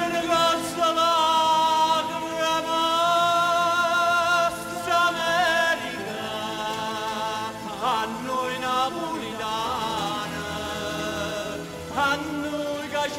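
Live music: a man singing long, held notes into a microphone, backed by a band with violins.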